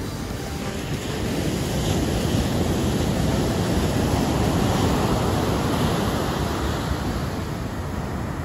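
Ocean surf breaking and washing up the beach: a steady rushing roar that swells about a second in and eases off toward the end.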